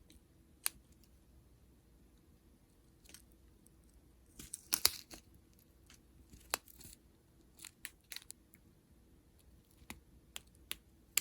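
Small plastic bags of resin diamond-painting drills being handled: scattered crinkles and light clicks, with the loudest cluster of rustling about halfway through.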